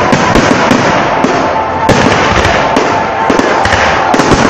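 Aerial firework shells bursting in quick succession: a dense, continuous run of bangs and crackling, with a sharp bang about two seconds in.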